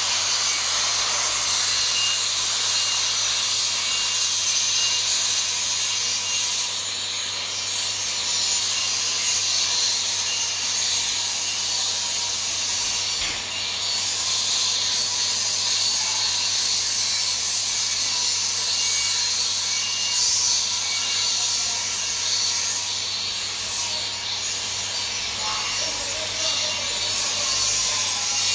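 TIG (argon) welding arc burning steadily on a pipe joint while the hot pass is laid: an even hiss with a faint hum beneath it.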